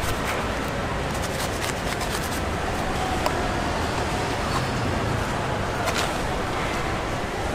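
Steady street-market background noise, with a quick run of short clicks and scrapes in the first two seconds or so and single ones later, from a knife cutting into a jackfruit.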